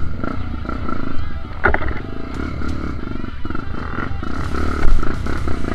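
Honda XR 250 Tornado's single-cylinder four-stroke engine running steadily under load on a dirt trail, with a sharp knock about a second and a half in.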